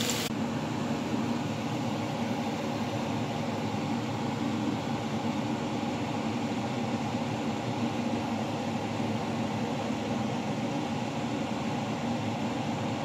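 Kitchen range hood fan running with a steady hum.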